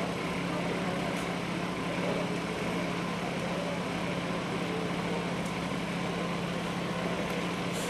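An engine running steadily at a constant speed, an even hum that does not rise or fall, with a few faint clicks over it.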